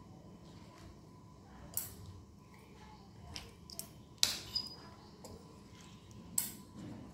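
A steel spoon clinking and scraping against a ceramic plate as it cuts through a soft custard pudding: several sharp clicks, the loudest about four seconds in.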